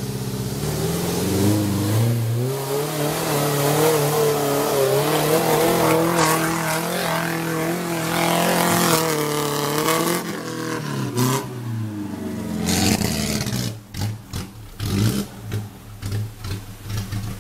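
Suzuki Jimny's engine revving up and down under load as it crawls over rocks and mud, the pitch rising and falling again and again. In the last few seconds the sound turns choppy and uneven.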